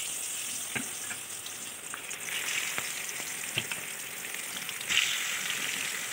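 Marinated fish pieces sizzling as they fry in hot oil in a steel kadhai, with a few sharp clinks of a metal utensil against the pan. About five seconds in the sizzle flares louder as more fish goes into the oil.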